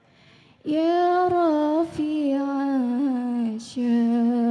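A woman singing sholawat solo through a microphone without drums, in long, wavering, ornamented phrases that begin about a second in, with a brief break for breath about halfway through.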